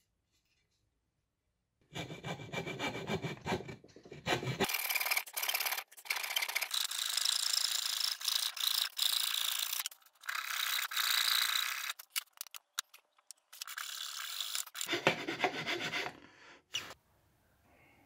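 Hand file rasping back and forth in a notch cut into 18 mm plywood, starting about two seconds in and going in several runs of strokes with short pauses between them.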